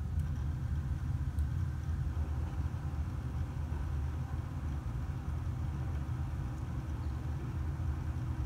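Steady low machine hum, even throughout, with a couple of faint ticks.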